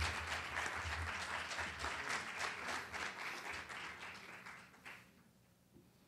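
Audience applauding an award winner, the clapping thinning and dying away about five seconds in.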